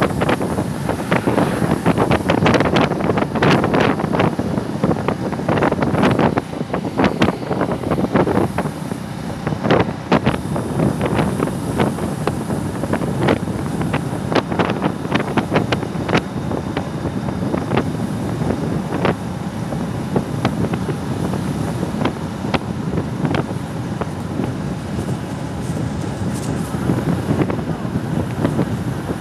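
Wind buffeting the microphone of a moving motorcycle, with frequent crackling gust pops over the steady rush of the ride.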